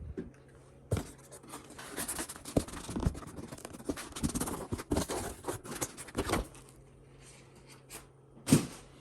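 Cardboard and foam packaging being handled, with rustling and scraping for several seconds as items are lifted out of the box, then one sharp knock near the end.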